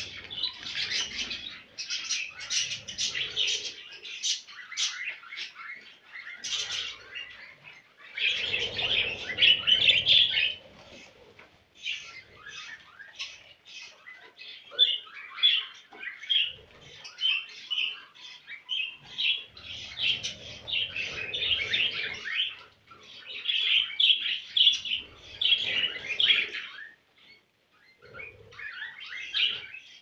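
Two male budgerigars warbling and chattering: a fast, continuous stream of chirps and clicks in bouts several seconds long, broken by brief pauses.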